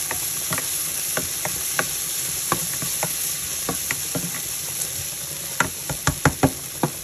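Sliced onions sizzling in hot oil in a nonstick frying pan as they are sautéed to brown, stirred with a spatula that scrapes and taps against the pan. Scattered taps give way to a quick run of louder ones near the end.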